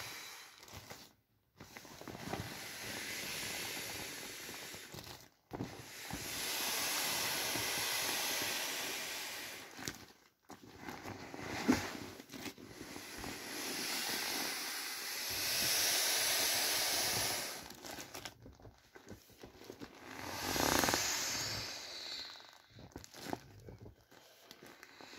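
Air hissing out of an inflatable vinyl children's boat as hands press it flat, in several long rushes a few seconds each with short pauses between, along with crinkling of the soft plastic.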